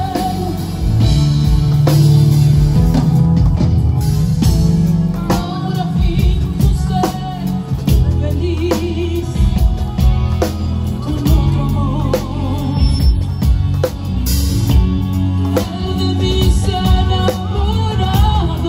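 A woman singing a song with vibrato over an instrumental accompaniment, with drums and a strong bass line beneath.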